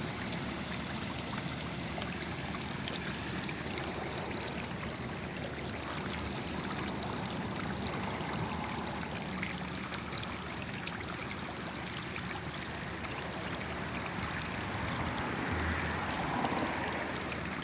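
Water running steadily, gushing up from a broken water main under the street and flowing along the pavement.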